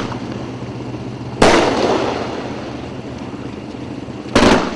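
A 500 gram consumer fireworks cake firing aerial shots: two loud bangs about three seconds apart, each trailing off into a fading rumble.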